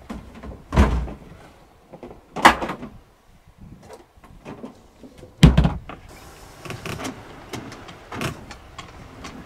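A plastic fuel can and the lid of a stern deck locker knocking three times in the first half as the can is stowed. Then comes a run of small irregular clicks and rope noise from a 4-to-1 pulley tackle on the topping lift as an inflatable dinghy is hauled up.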